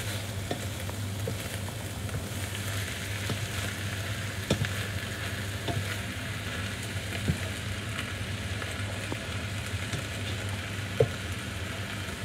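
Minced beef with peppers and tomatoes sizzling in a frying pan as a spatula stirs it. The spatula scrapes and taps the pan now and then, most sharply about four and a half seconds in and near the end, over a steady low hum.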